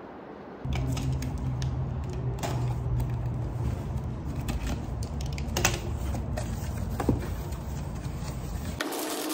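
A cardboard shipping box being handled and opened: scattered clicks, scrapes and rustles as the packing tape is cut with a box cutter and the flaps are pulled open, over a steady low hum that starts just under a second in.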